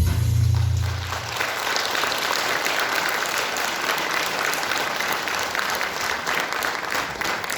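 Audience applauding as a song ends, with the last low note of the accompaniment cutting off about a second in.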